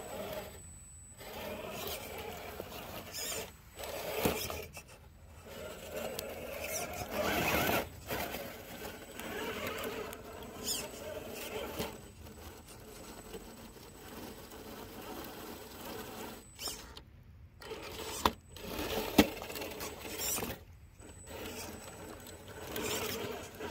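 Radio-controlled scale crawler truck climbing over rocks: its electric motor and drivetrain whine steadily, rising and falling with the throttle, with tyres scraping on stone and a couple of sharp knocks of the chassis on rock near the end.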